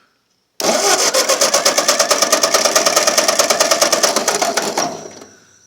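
1951 Ford 8N's four-cylinder engine being cranked over on its starter for a compression test of cylinder 2, a rapid, even chugging that starts about half a second in and stops after about four seconds. The gauge reading that follows is good.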